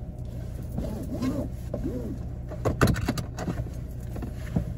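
Inside a car with the engine running: a steady low hum, broken by a few sharp knocks and clicks of handling, the loudest about three seconds in.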